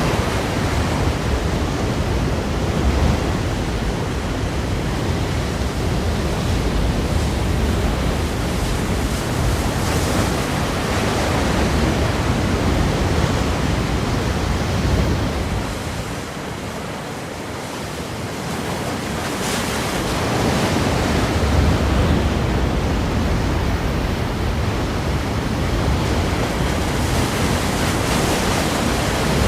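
Ocean surf breaking against rocks, a continuous rushing wash that eases off briefly about halfway through and then builds again.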